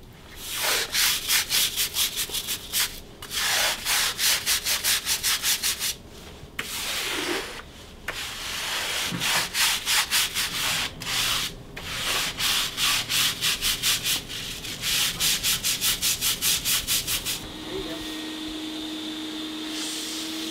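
Stiff-bristled push brush scrubbing bare concrete wet with foamy cleaner, in fast back-and-forth strokes about four a second, in several runs with short pauses. Near the end a wet vacuum starts with a steady hum.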